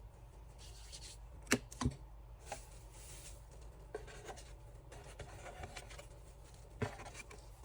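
Hands handling small items and packaging: quiet rubbing and rustling, with sharp clicks about a second and a half in, just after, and near the end.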